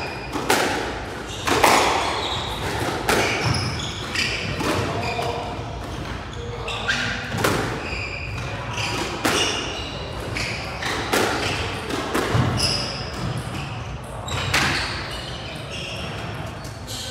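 A squash rally: the ball struck by rackets and hitting the walls about every second and a half, each hit ringing in the enclosed court, with short high squeaks of court shoes on the floor between shots.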